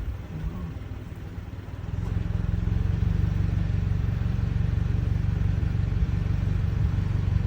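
Vehicle engine and road noise, a low steady rumble that grows louder about two seconds in and then holds steady.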